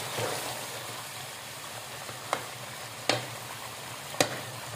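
Chicken, tomatoes and oil sizzling steadily in a metal karahi as a slotted metal spatula stirs, the spatula knocking against the pan three times.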